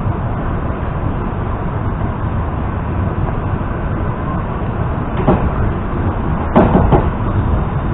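EP2D electric multiple-unit train running, heard from inside the carriage as a steady rumble and hiss. A sharp knock comes about five seconds in, and a louder one a little over a second later.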